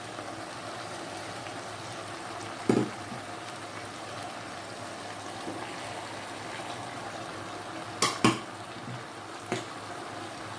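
Sliced peppers and onions simmering in a metal pot with a steady hiss, broken by a sharp knock about a quarter of the way in and a quick double knock near the end, as a bowl is tipped against the pot to add green peas and raw shrimp.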